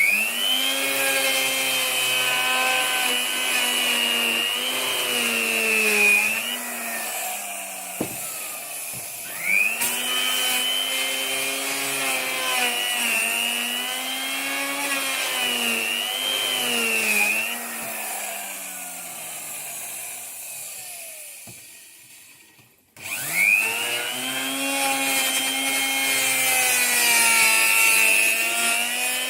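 Electric wood router spinning up three times and cutting wood, its motor pitch dipping and wavering under load, with a wind-down in the middle and a sudden stop just before the last start.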